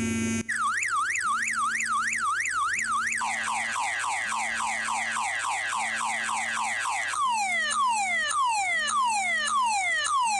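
Anti-theft alarm app on an Android smartphone sounding its siren through the phone's loudspeaker, set off by a hand covering the proximity sensor. A car-alarm-style siren cycles through patterns: a fast up-and-down warble, then rapid falling sweeps from about 3 seconds in, then slower falling whoops from about 7 seconds in, over a low tone pulsing on and off.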